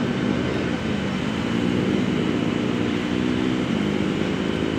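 Steady low engine drone, with an even hum and no clear rises or falls.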